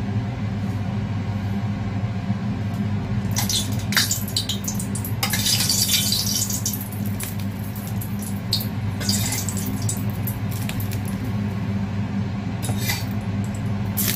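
Metal ladle scraping and knocking in a stainless steel wok as the pan oil is scooped and spooned over a plated fried fish, in short bursts of scraping and sizzling, the longest about halfway through, over a steady low hum.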